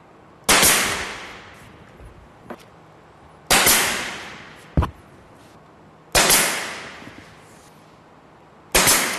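Pin nailer firing four times, about every two and a half seconds, driving pin nails into the glued wooden top to hold it in place; each shot is a sharp bang followed by a hiss that fades over about a second. A lighter sharp click comes between the second and third shots.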